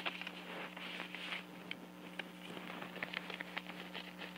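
A white paper object crinkling and crackling as it is handled close to the microphone, a quick run of small irregular clicks and rustles, with a sharp click right at the start.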